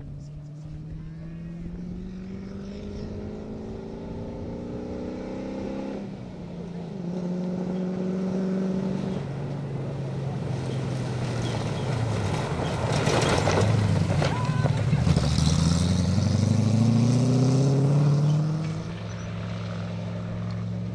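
Land Rover-based Tomcat off-road rally cars driven hard on gravel, engines revving up and dropping back through gear changes again and again. Loudest in the middle as a car comes close, with a rush of tyre and gravel noise.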